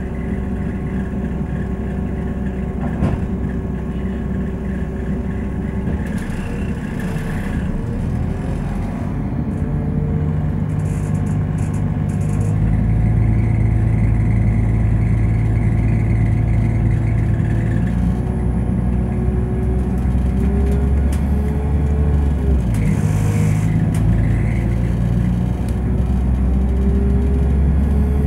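Underfloor diesel engine of a Class 172 DMU with ZF Ecomat transmission, heard from inside the carriage: idling at first, then about a dozen seconds in it opens up and the train pulls away. A whine climbs in pitch as it gathers speed, dropping back a few times as the gearbox changes.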